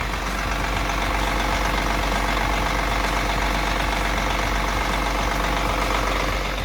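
Detroit Diesel Series 60 inline-six turbo diesel in a 1997 MCI 102DL3 coach, idling steadily with a deep, even hum.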